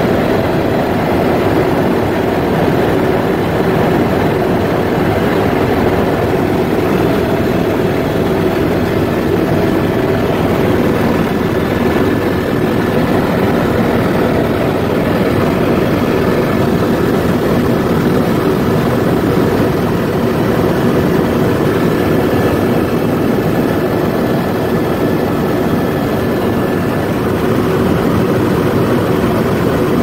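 Aircraft in flight: a steady, loud engine drone heard from inside the cabin, with a few faint steady whining tones over it.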